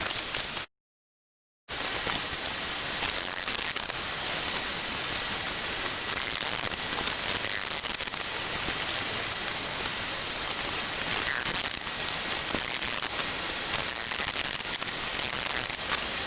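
Forge running with a steady hiss of burner or blast air, broken by about a second of total silence near the start.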